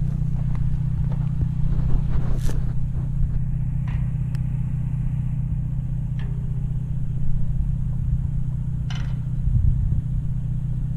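A vehicle engine running steadily, a low even drone, with a few short clicks and knocks over it.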